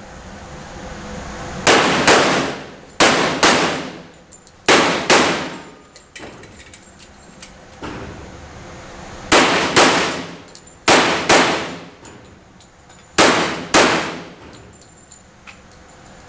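Pistol fired in quick pairs: six double-taps, twelve shots, the two shots of each pair about 0.4 s apart, with pauses of one to four seconds between pairs. Each shot rings and echoes off the walls of an indoor range.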